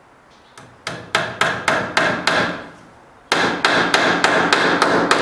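Hammer driving a cable staple for Romex cable into wood framing: a run of sharp, quick blows, a short pause about three seconds in, then a faster, steady run of blows.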